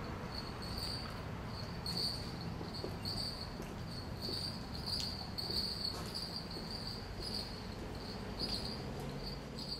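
Insects chirring outdoors: a thin, high-pitched trill that keeps swelling and fading, over a steady low outdoor rumble, with a few faint clicks.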